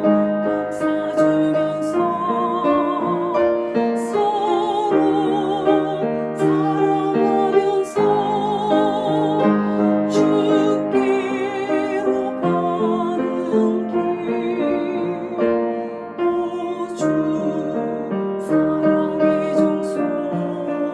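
A woman's alto voice singing a sacred choral song with vibrato over piano accompaniment.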